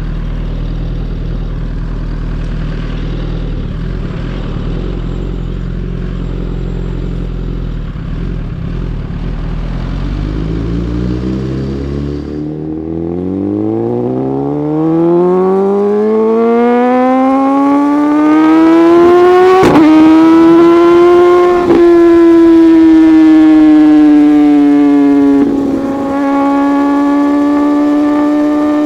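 Suzuki GSX-R1000R inline-four through an untuned M4 full exhaust system: idling steadily, then the revs climb smoothly over several seconds as the bike pulls away and hold high. The run is broken three times by sharp cracks with a brief dip in the note, quickshifter upshifts.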